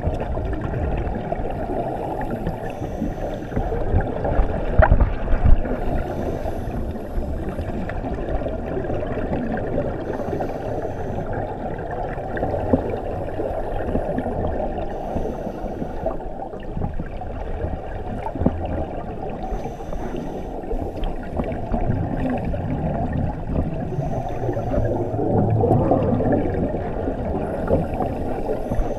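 Underwater recording through a camera housing: a steady, muffled rush of water noise. Scuba regulator exhaust bubbles gurgle about every four seconds as the diver breathes out.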